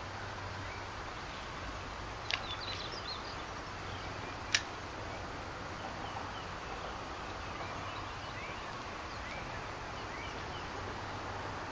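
Outdoor ambience: a steady background hiss with scattered short bird chirps. A small click comes a little past two seconds in, and a sharper, louder click about four and a half seconds in.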